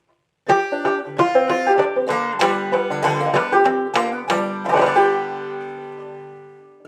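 Clawhammer banjo playing an instrumental intro: a run of quick plucked notes, then a chord about two-thirds of the way through that rings and slowly fades.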